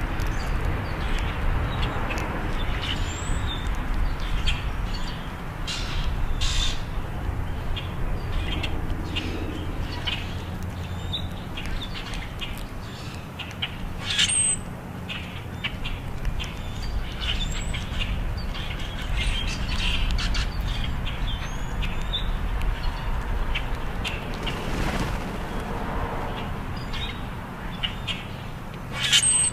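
Blackbirds feeding at spilled grain, giving short chirps and squawks off and on, louder calls about halfway through and near the end, over a steady low hum.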